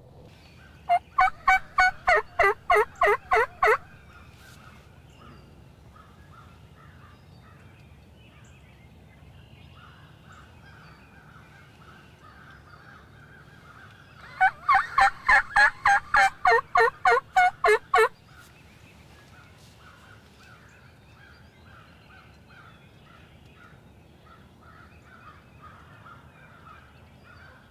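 A turkey hunter's mouth-blown call, used to make roosted birds answer. It gives two loud runs of about a dozen rapid, harsh notes, about four a second: one a second in, the other near the middle.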